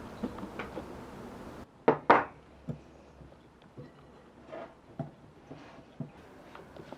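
Kitchen utensils knocking and tapping against a bowl and work surface during baking prep: two sharp knocks about two seconds in, then scattered lighter taps.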